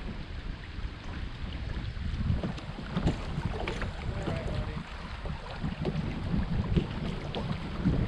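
Wind buffeting the microphone over the rush of a shallow riffle running past a kayak's hull.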